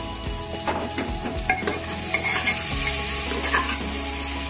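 A metal spatula stirring chopped potatoes and tomatoes frying in oil in an aluminium pressure cooker, with repeated clicks and scrapes of metal on the pan's side. The sizzle gets louder from about two seconds in.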